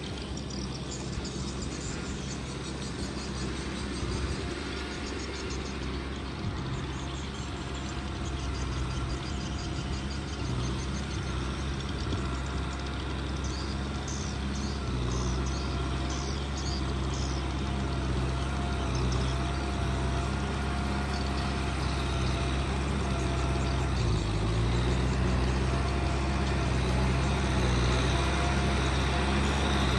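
Kubota M6040 tractor's diesel engine running steadily under work, growing gradually louder, with a thin wavering whine over the engine note. The engine note dips and shifts about two thirds of the way through.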